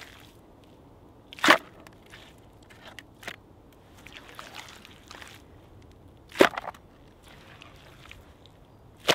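Bare hands scraping and scooping loose, damp forest soil, with handfuls landing in a plastic bucket: two loud thuds, about a second and a half in and about six and a half seconds in, a lighter one in between, and soft scrapes and rustles of earth and leaf litter.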